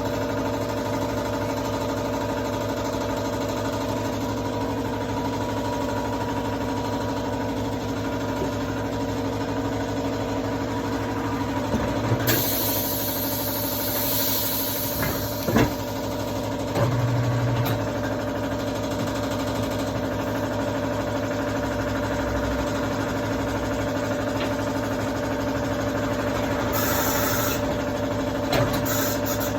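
A steady mechanical hum, like an engine idling, with a few short bursts of hiss and sharp knocks partway through and near the end.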